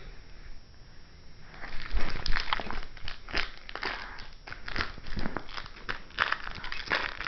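Doberman chewing and mouthing a fuzzy plush toy: a dense run of crinkling, crackling clicks and rustles that starts about a second and a half in.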